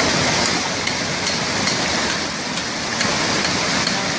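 Rushing floodwater of a swollen river, a steady, loud roar with a few faint clicks over it.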